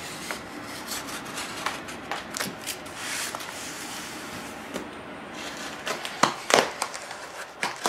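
Box cutter slicing along the white paper tape that wraps a cardboard package, with paper and cardboard rustling and rubbing under the hands. A few sharp knocks come about six seconds in.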